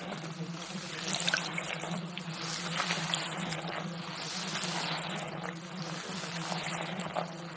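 Steady water-like hiss, like trickling or running water, over a low steady hum.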